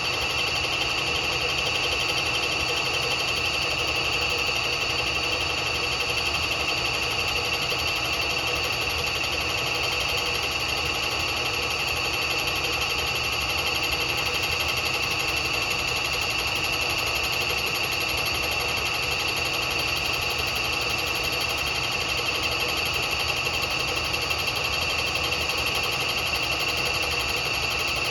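Bridgeport milling machine running a slow finish skim cut across the face of a Harley-Davidson cylinder, a steady high-pitched whine with the cutter's noise beneath it.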